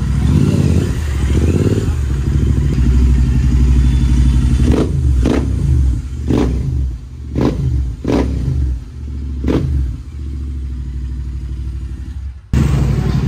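Royal Enfield GT650's parallel-twin engine through a loud aftermarket exhaust, running and revving, then about six sharp throttle blips over the idle in the middle of the stretch before it settles back to a steady idle.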